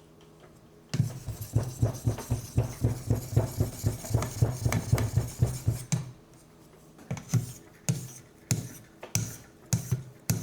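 Knife blade stroked back and forth on a coarse-grit TSProf Alpha sharpening stone: a quick run of rasping strokes, about four a second, starting about a second in, then slower, separate strokes in the second half.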